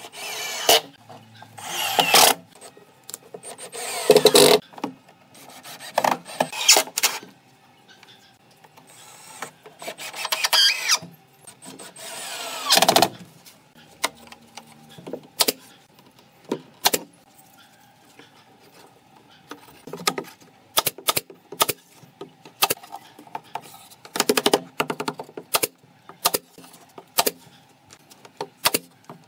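Cordless drill driving screws into a wooden bookshelf in several short runs over the first dozen seconds. Then comes a string of sharp clicks and knocks as small wooden pieces are fitted into the shelves by hand.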